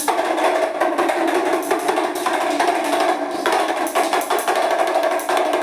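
Damru, the small hourglass-shaped drum, shaken in a fast continuous roll, its knotted strikers beating both heads in a dense rattle. It starts suddenly.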